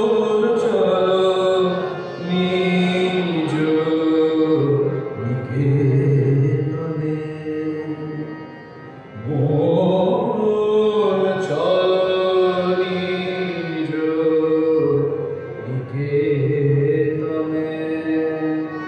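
Male voices singing a Bengali devotional song in long, drawn-out notes over a harmonium, with short breaks between phrases.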